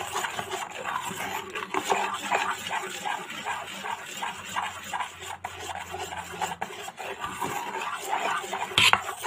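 A spoon stirring and beating thick pancake batter in a bowl: rhythmic scraping strokes against the bowl's sides, with one louder knock near the end.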